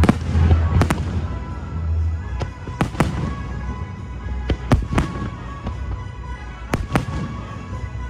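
Fireworks shells bursting: sharp bangs about every one to two seconds, several in quick pairs, over show music. A deep rumble from the bursts is strongest near the start and fades.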